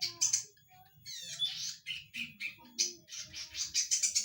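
Cisticola (cici padi) calling loudly: rapid runs of short, high chirps and squeaky notes in clusters, with a brief lull about half a second in and a dense run near the end.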